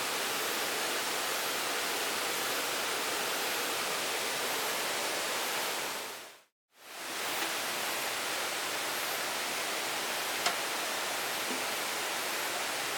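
Steady rushing of a mountain stream, fading out about halfway through and fading back in a second later, with a brief faint tick near the end.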